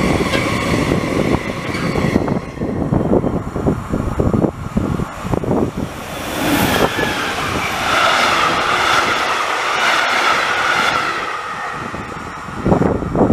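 Trains passing on an electrified line. A freight train of hopper wagons rolls by with a steady high wheel squeal for about the first two seconds. Then an electric locomotive hauling passenger coaches passes, its sound swelling and fading through the middle.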